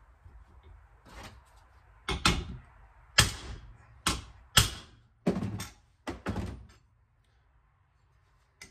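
About ten sharp knocks and clunks at uneven spacing over about five seconds as a steel springer chevron is worked against a pin in a bench vise, then they stop.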